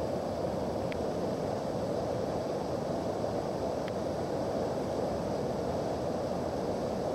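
Steady rushing of whitewater pouring over a creek's rock ledges and small waterfalls: an even noise.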